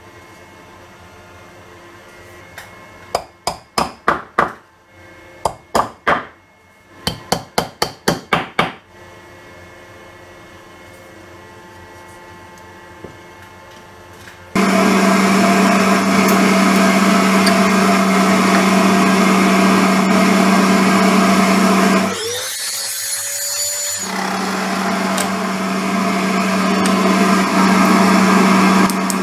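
Three quick runs of sharp knocks, then about halfway through a woodworking power tool starts and runs steadily with a strong low hum. It drops away for a couple of seconds before running on.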